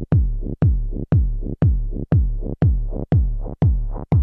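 Electronic dance music with a heavy, steady kick drum and bass, about two beats a second. Brighter synth sound swells in over the beat near the end.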